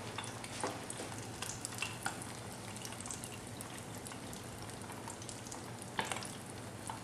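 Shrimp and vegetable spring rolls deep-frying in hot oil: a steady sizzle with scattered crackles and pops, a sharper crackle about six seconds in.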